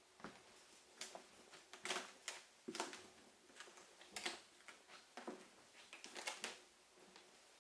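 Faint footsteps on a wooden floor, heard as irregular knocks about one or two a second inside a small wood-panelled railway carriage.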